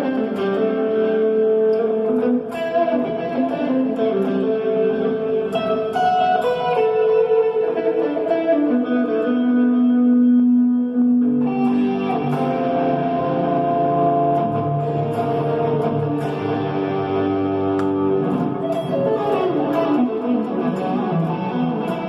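Electric guitar, a Fender Telecaster, played with single plucked notes and chords that ring on. A low note is held for a couple of seconds near the middle, and then the playing picks up again.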